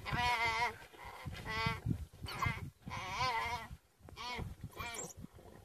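Young antelope bleating in distress while wild dogs tear at it: a string of about six wavering, pitched bleats, each about half a second long.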